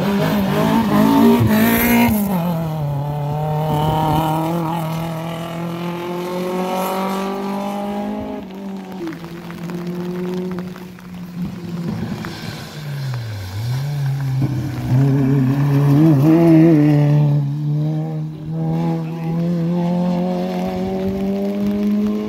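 Rally car engines at high revs through a hairpin. The engine note drops about two seconds in, then holds high and slowly climbs as the car pulls away. Around thirteen seconds in the note dips sharply and climbs again as another car comes through.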